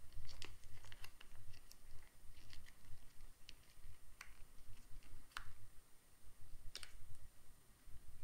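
Small plastic sachet of peanut butter being squeezed and handled: irregular light crackles and clicks of the packet, with a few sharper ticks scattered through.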